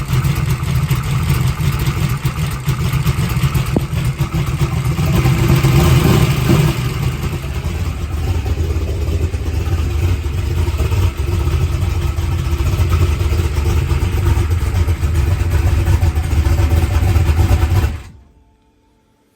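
Turbocharged small-block Chevy V8 drag-race engine idling cold, steady, a little louder around six seconds in. The sound stops suddenly near the end.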